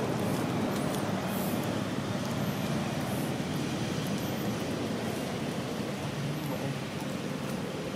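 Steady outdoor background noise, a constant rumbling hiss with no distinct events, and a few faint high chirps now and then.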